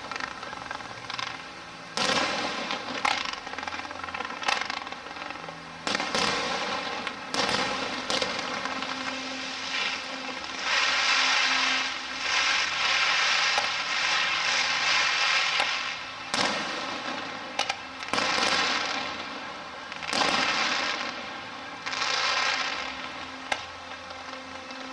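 Aerial fireworks display: sharp shell bursts every second or two, and long stretches of dense crackling about ten seconds in and again near the end. Steady music plays faintly underneath.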